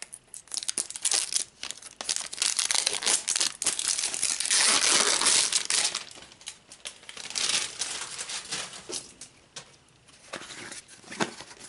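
Plastic packaging crinkling and tearing as a toy's plastic tube is unwrapped and opened by hand. It comes in irregular bursts of rustling, with the longest, loudest stretch about four to six seconds in.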